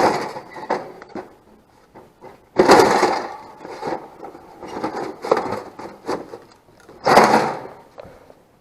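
Small hard objects being handled and rummaged through: clattering and scraping, with three louder rattling bursts and scattered clicks between them.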